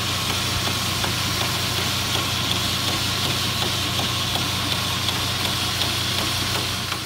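Stroke sander running steadily, its long belt pressed by a hand pad onto a board on the sliding table: a constant hum under a wide hiss, with a faint regular tick two or three times a second.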